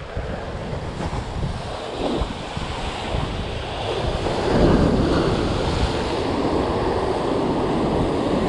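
Rough sea surf breaking on rocks, with strong wind buffeting the microphone; the surf swells louder about halfway through.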